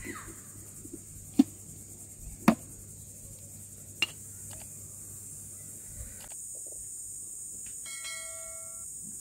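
A metal spatula gives sharp clinks against a cooking pot of biryani, twice, the second about a second after the first, with a lighter click later. Near the end comes a short bell-like ding of several steady tones, the notification-bell sound of a subscribe-button animation, over a steady high hiss.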